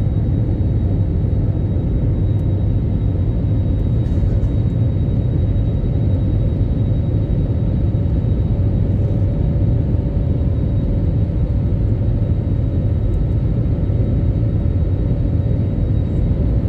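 Airbus A321neo cabin noise during takeoff or climb: a steady, loud rumble of the jet engines and airflow, with a faint steady whine over it.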